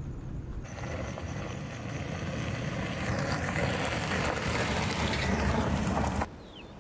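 Car driving on a gravel road: a low rumble at first, then the engine and tyre noise comes in suddenly and grows steadily louder as the car approaches. It cuts off abruptly near the end.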